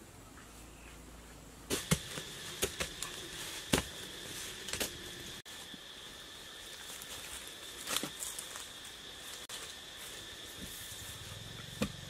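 Scattered sharp knocks and scrapes from hands digging in dry leaf litter and soil, over a steady high-pitched insect buzz that starts a couple of seconds in.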